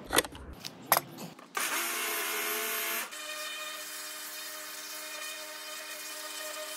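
Electric pressure washer switched on: a couple of clicks from its dial switch, then the motor and pump start about a second and a half in and run steadily with a high whine over the hiss of the spray, stepping down a little in loudness about three seconds in.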